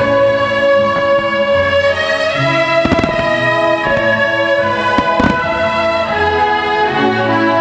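Orchestral music playing loudly as aerial firework shells burst over it: a pair of bangs about three seconds in and two more about five seconds in.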